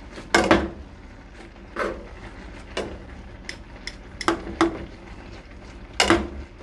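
Metal tongs knocking and clicking against a metal pot as ramen noodles and sausage are tossed, in scattered irregular strikes, a few ringing briefly.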